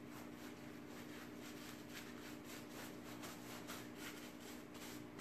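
Paintbrush scrubbing chalk-type paint into upholstery fabric, faint quick strokes about three a second.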